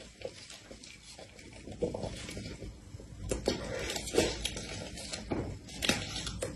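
Close-up eating sounds: soft, wet mouth noises and smacks from biting and chewing a cream-filled snow-skin mochi (xuemeiniang), with several sharper clicks in the second half.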